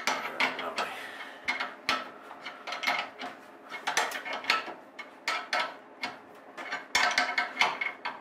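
Open-end spanner clicking and scraping on a brass pipe fitting in short, irregular strokes as it is repeatedly repositioned and turned, tightening the diesel supply line onto a stove's fuel metering valve.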